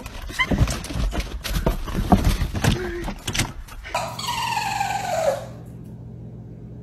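Clattering and knocking noise for about four seconds, then a small dog gives one long howl that falls steadily in pitch, over a steady low hum.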